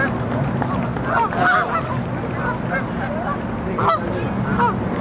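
Geese honking, many short calls overlapping one another, over a steady low hum.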